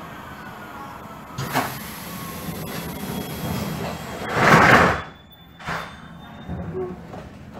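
Door gear of a 1977 B100S light-rail car at a standstill: a sharp knock about a second and a half in, then a loud rushing hiss of under a second about four and a half seconds in, and a shorter one a second later.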